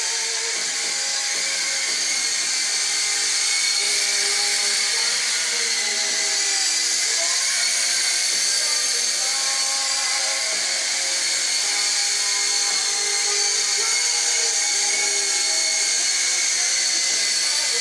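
SYMA S032 radio-controlled toy helicopter in flight: its small electric motors whine steadily as the rotors spin, the pitch stepping up and down with throttle changes.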